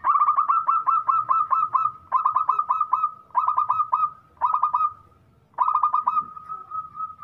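Zebra dove (perkutut) calling: quick, clipped cooing notes, about four or five a second, in five bursts separated by short pauses. The last burst trails into a softer, even string of notes.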